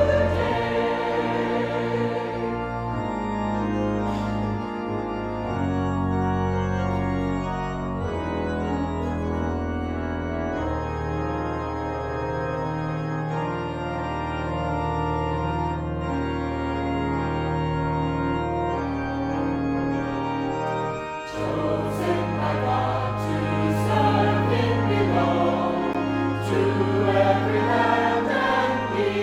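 Choir singing a hymn with organ accompaniment over held bass notes. The voices thin out in the middle, leaving mostly sustained chords, then come back in strongly about two-thirds of the way through.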